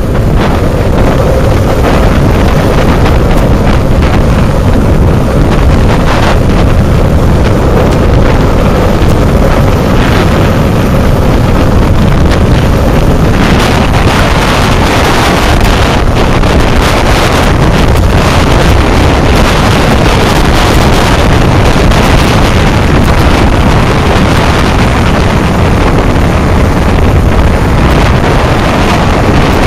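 Loud, steady wind rushing over the microphone of a longboarder riding fast downhill, with the rumble of skateboard wheels rolling on tarmac underneath.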